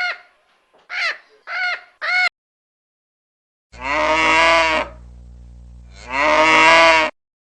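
A cow mooing twice: two long calls about a second and a half apart, with a low steady hum running between them. Before that, in the first two seconds, come four short calls from another animal.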